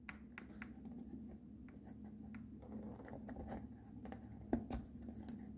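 Faint scattered clicking and scratching of fingers and cutters working among the plastic wiring connectors inside a steering wheel, with one sharper click about four and a half seconds in.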